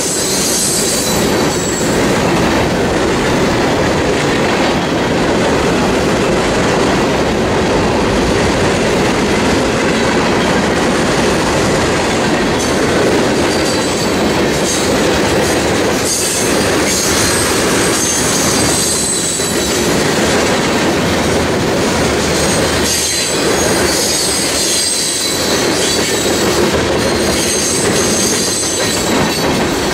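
Freight train cars rolling past close by: a steady, loud rumble of steel wheels on rail. A high-pitched wheel squeal comes and goes over it and is strongest in the second half.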